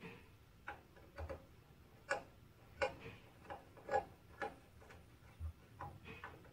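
Quiet, irregular clicks and taps, about a dozen, from a screwdriver and the plastic panels of a UPS battery backup being handled by hand.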